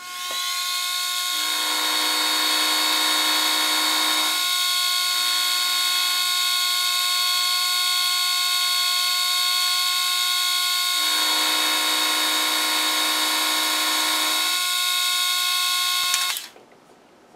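Small milling machine spindle starting with a quickly rising whine, then running at a steady high whine. An end mill takes two light 10-thou cuts across a small steel key, each adding a lower-pitched cutting sound for a few seconds, about a second and a half in and again about eleven seconds in. The spindle motor cuts off suddenly near the end.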